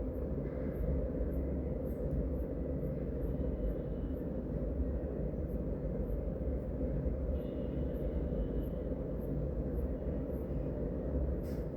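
Steady low rumble of street traffic, with a faint high tone twice.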